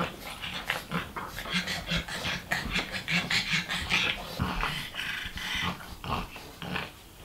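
Two pugs play-wrestling, making a run of short, irregular growls, grunts and rough breaths that ease off near the end.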